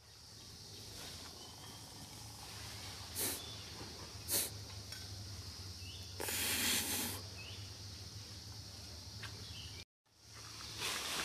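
Outdoor woodland ambience: a steady high insect drone over a low hum. Two short crackles come about three and four and a half seconds in, and a longer rustle follows around six seconds in, from monkeys moving through leaves and brush.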